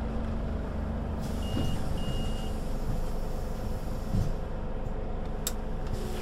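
Scania Citywide LE city bus's five-cylinder diesel engine running steadily. Two short high-pitched beeps come about one and a half and two seconds in, and a brief thump a little after four seconds.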